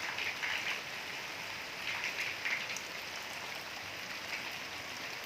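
Steady rain falling, a continuous hiss with single drops ticking now and then. It swells slightly near the start and again about two seconds in.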